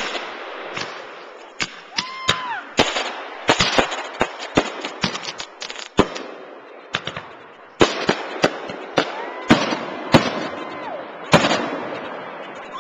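Aerial fireworks going off: an irregular run of sharp bangs and crackles from bursting shells, with a whistle that rises, holds and falls about two seconds in and again around nine to eleven seconds.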